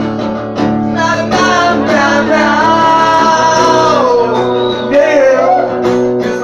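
Acoustic guitar strumming chords under a singer's voice. The singer holds one long note in the middle, then lets it fall away.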